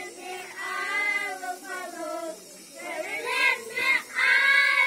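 A group of young children singing together, in held phrases with short breaks between them, louder in the last second or two.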